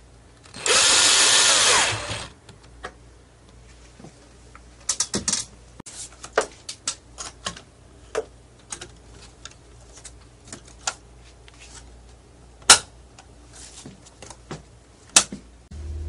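A power drill runs in one loud burst of about a second and a half, its pitch wavering, followed by scattered sharp clicks and knocks.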